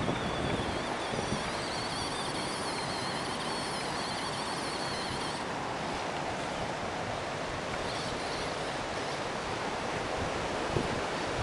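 Steady rushing noise of river water mixed with wind on the microphone. A faint, high wavering whine sits over it for the first five seconds or so.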